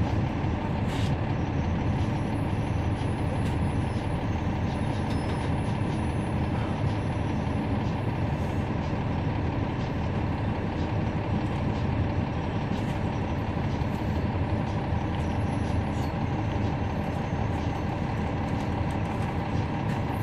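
Cummins ISL9 diesel engine of a 2011 NABI 40-foot transit bus heard from inside the bus: a steady low drone.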